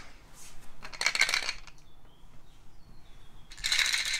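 Hollow plastic sound cubes from a memory game being shaken, the loose contents inside rattling in short bursts about a second in and again near the end.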